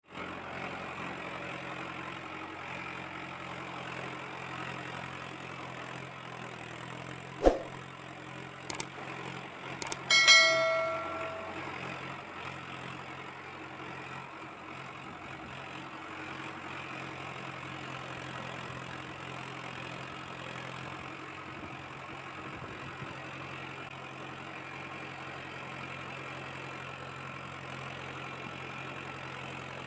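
Steady engine hum like a tractor idling, even and unchanging throughout. About seven seconds in there is a sharp click, and about ten seconds in a short bell-like ding rings out and fades.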